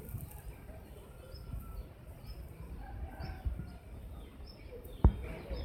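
Birds calling in short high notes that repeat about every half second, with lower calls among them. One sharp knock about five seconds in stands out as the loudest sound.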